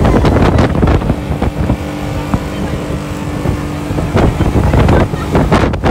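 Motorboat running fast over open water, its engine a steady drone under loud wind on the microphone. A steady engine tone stands out for a couple of seconds in the middle.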